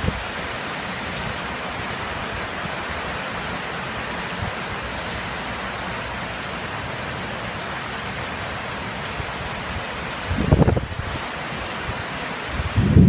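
Heavy rain pouring steadily, with a short low rumble of thunder about ten seconds in and another rumble starting near the end.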